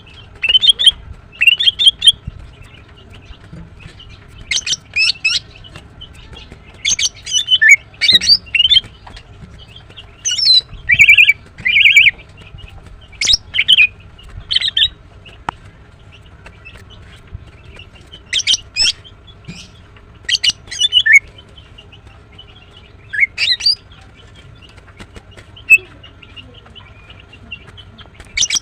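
Female greater green leafbird calling in short bursts of sharp, high chirps and quick warbled phrases, separated by irregular pauses of one to a few seconds.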